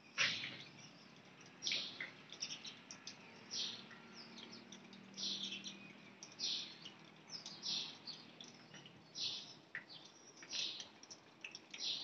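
Swallows chirping: short, high chirps at irregular intervals, a louder one every second or two with fainter ones in between.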